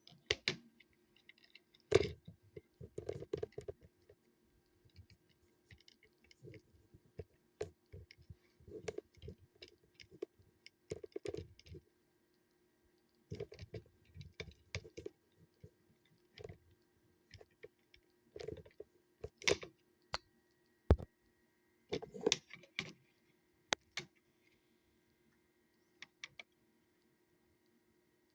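Irregular clicks, taps and knocks of small plastic and metal parts being handled, some in quick clusters, with a faint steady hum underneath.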